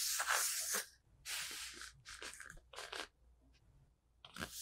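Kinetic sand crunching and crumbling under the hands in about five short hissy bursts, the longest right at the start and another near the end.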